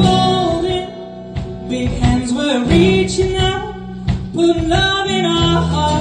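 Country band music: a melody line with singing over guitar accompaniment.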